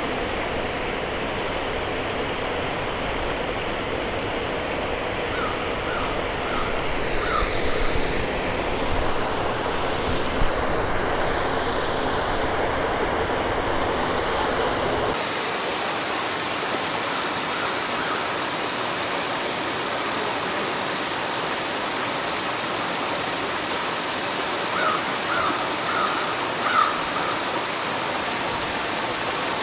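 Small waterfall pouring over granite ledges into a pool: a steady rush of falling water. About halfway through the rush turns thinner and hissier.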